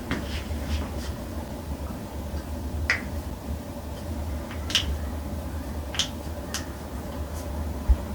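Joints popping during a chiropractic spinal adjustment: several crisp cracks, the clearest about three, five and six seconds in, then a dull thump near the end.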